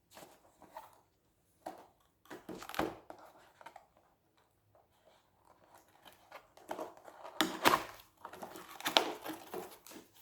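A package being handled and torn open: plastic wrapping crinkling and tearing in irregular bursts, loudest in the second half.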